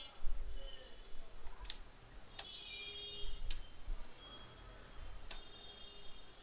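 About four sharp computer-mouse clicks, spaced unevenly, over a faint low hum of room noise.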